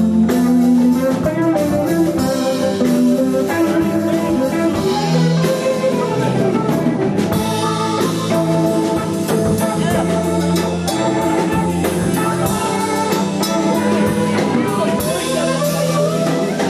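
Live band playing an instrumental passage: hollow-body electric guitar, acoustic guitar, electric bass and drum kit together.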